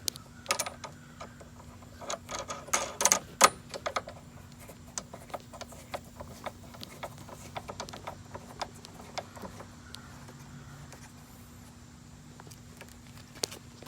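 Small metal clicks and taps of a nut and bolt being fitted by hand on a mower handle, with a cluster of louder knocks about three seconds in, then lighter scattered ticks.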